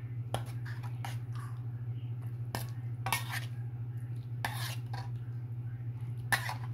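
A spoon scraping and knocking against a metal wok while cooked pork and opo in broth are stirred: about six separate strokes at uneven intervals. A steady low hum runs underneath.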